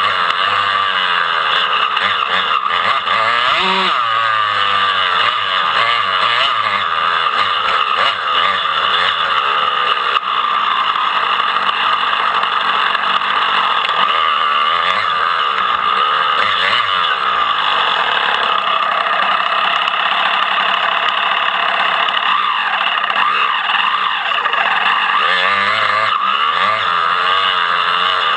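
Motocross dirt bike engines racing, revving up and dropping back in pitch over and over.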